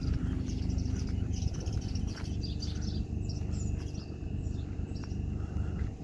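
Small birds chirping quickly and repeatedly, over a steady low rumble and footsteps on dirt.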